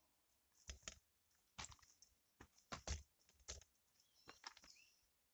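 Irregular light clicks and crackles of a soft plastic nursery pot being squeezed and worked as a Japanese mint plant's root ball is loosened and pulled out, about ten sharp clicks, the loudest around three seconds in.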